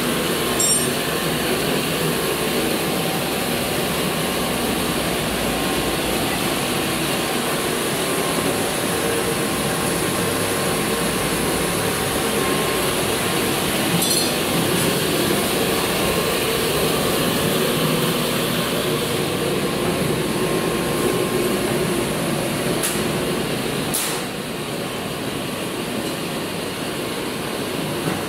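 Air-cooled chiller running: a steady mechanical drone with a few light metallic clinks. Two sharp clicks come near the end, and the drone drops a little after them.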